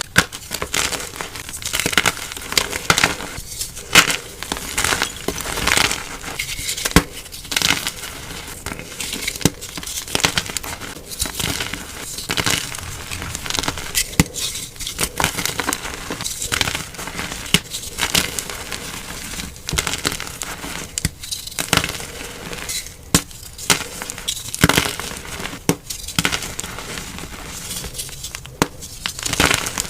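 Dyed gym chalk blocks being crushed and crumbled by hand, with dense, irregular crisp crunching and crackling.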